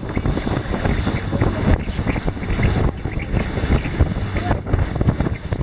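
Motorboat running fast through choppy sea: a steady engine drone mixed with the rush of spray off the hull and heavy wind buffeting the microphone.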